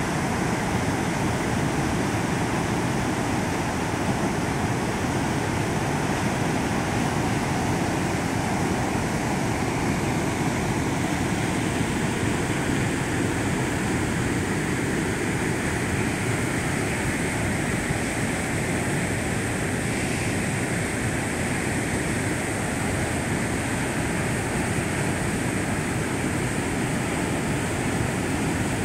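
Floodwater pouring through the open spillway gates of a large concrete dam and crashing down the spillway: a steady, unbroken rush of water.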